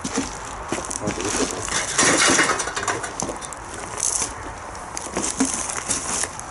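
Footsteps crunching and scuffing over debris on the floor, with irregular clicks and small clinks; a louder crunching rustle about two seconds in.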